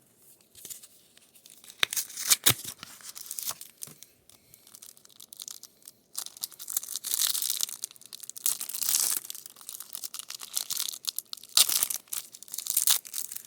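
Foil wrapper of an Optic football card booster pack being torn open and crinkled by hand, in sharp crackles and longer rustling stretches.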